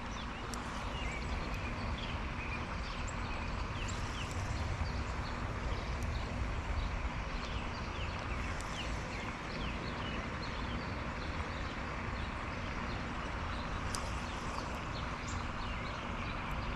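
Steady outdoor background of light rain and wind noise with a low rumble, with many short bird chirps scattered throughout and a few faint clicks.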